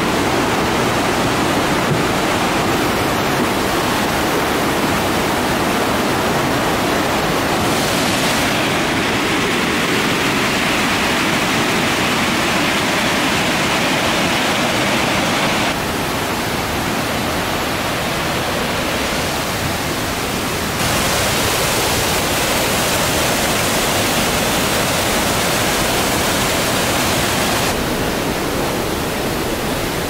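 Loud, steady rush of a waterfall and its river tumbling through a rocky gorge; the sound shifts abruptly in loudness and tone a few times.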